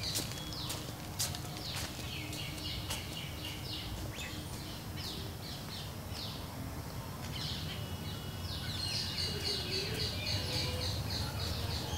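Birds chirping in quick runs of short descending chirps, thinning briefly mid-way and busier again after, over a steady low rumble. A few sharp clicks in the first few seconds.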